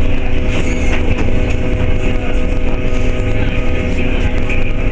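Berlin U-Bahn train running, heard from inside the carriage: a steady deep rumble with a constant hum of a few held tones over it.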